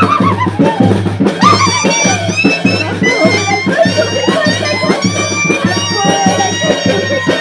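Band music: brass instruments playing a melody over a steady bass drum beat, about two beats a second.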